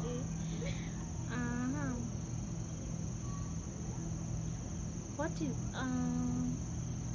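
Crickets chirring in a steady high-pitched drone over a low steady hum, with a woman's voice making two short hummed sounds, one about a second in and one near the end.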